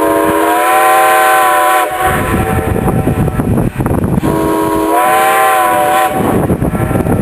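Steam locomotive chime whistle blowing two long blasts, each sounding several notes at once, over the rumble of the running train.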